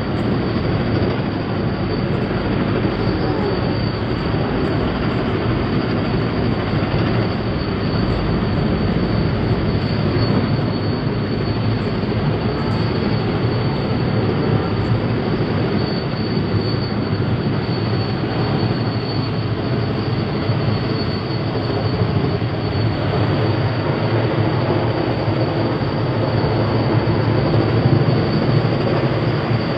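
Helicopter running close by while it hovers and sets down: a loud, steady rotor and engine noise with a constant high turbine whine.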